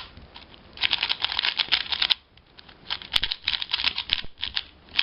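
QiYi Valk 3x3 speed cube being turned quickly for the first time: rapid runs of plastic clicking and clacking in two spells, with a short pause about two seconds in. The cube is still at its tight factory tension.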